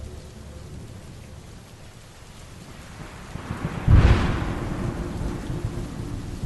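Steady rain, with a thunderclap that builds quickly and peaks about four seconds in, then trails off in low rumbling.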